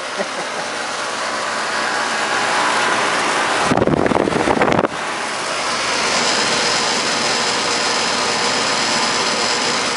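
A 3.5-ton outdoor HVAC condensing unit running, its fan giving a steady rush of air that grows louder over the first few seconds. There is a loud, deeper burst about four seconds in, and a faint high whine from about six seconds on.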